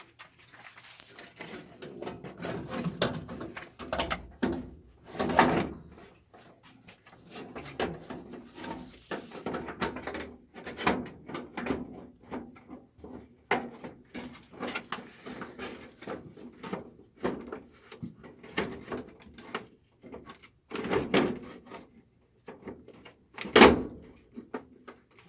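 Irregular knocks, clunks and rattles of a GE dryer's metal panels being handled and screwed back together, with a few sharper bangs along the way.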